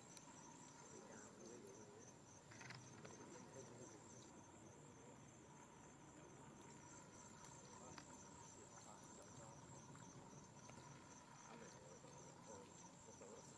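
Faint insects chirring in a high, evenly pulsing rhythm, with a faint steady tone beneath.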